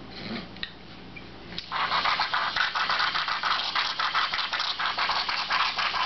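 Close, continuous scratchy rustling and scraping that starts about two seconds in after a quieter opening.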